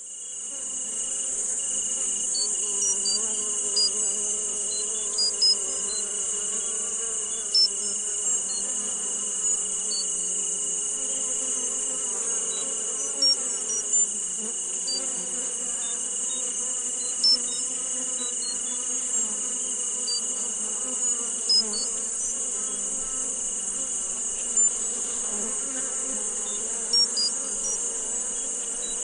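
Steady high-pitched hiss like a chorus of crickets, with a thin steady whistle under it, scattered short chirps and a low hum; it fades in over the first second.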